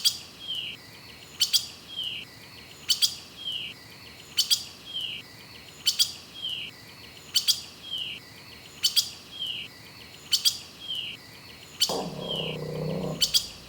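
A bird call repeating at a steady pace, about every second and a half. Each call is two sharp clicks followed by a short falling whistle. Near the end, a lower-pitched animal call lasting about a second comes in under it.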